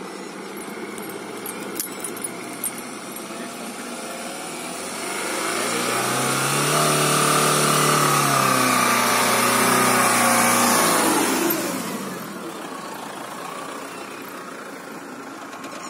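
Mahindra Thar CRDe's four-cylinder diesel engine under hard throttle as the 4x4 charges up a sandy climb. It grows louder and rises in pitch about five seconds in, holds high for several seconds, then falls away about twelve seconds in.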